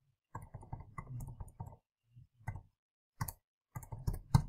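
Calculator keys being pressed. First comes a quick run of soft clicks, then several separate sharp taps in the second half, the last one the loudest.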